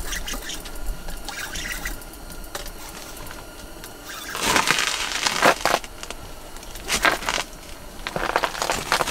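Water splashing and sloshing in an ice-fishing hole in several irregular bursts as a hooked lake trout is played at the hole and landed.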